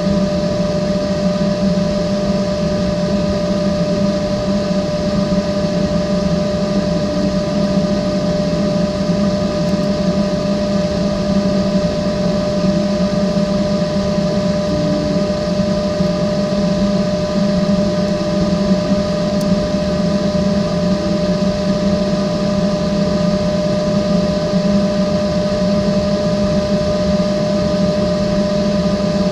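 Small battery-powered fan of a homemade ice-cooled air conditioner running steadily: a constant hum with a steady whine above it.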